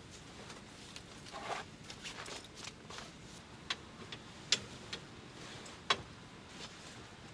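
Light rustling with a few sharp clicks and knocks scattered through the middle: parts of a Mini Mate tent trailer being handled as it is unfolded and set up.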